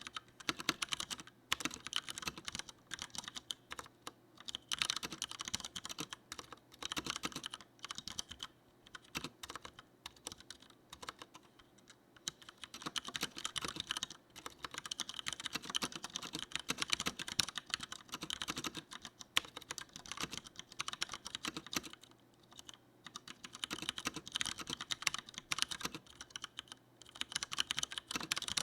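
Typing on a Leopold FC900R mechanical keyboard with Cherry MX Brown switches: rapid, continuous keystroke clacking in long runs, broken by a few short pauses.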